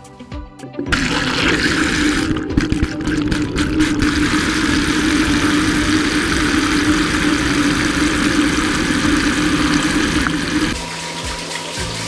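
A toilet flushing: a loud, steady rush of water that starts about a second in and lasts about ten seconds, then gives way to a quieter sink tap running near the end.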